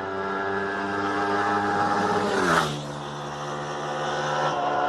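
A motorcycle engine passing at speed. The engine note grows louder, then drops in pitch with a brief rush as it goes by, about two and a half seconds in, and carries on at a lower steady note.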